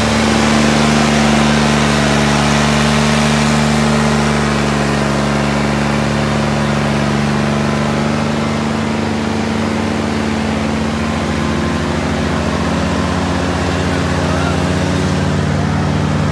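Tractor engine running steadily under heavy load as it drags a loaded trolley stuck in mud, easing slightly in loudness about four seconds in.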